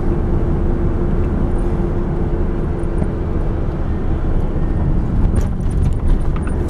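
Car driving, heard from inside the cabin: a steady low road-and-engine rumble with a steady hum. A few light clicks and knocks come near the end.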